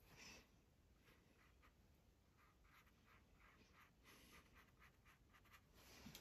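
Near silence, with a few faint strokes of a paintbrush on rag watercolour paper, most of them about four to six seconds in.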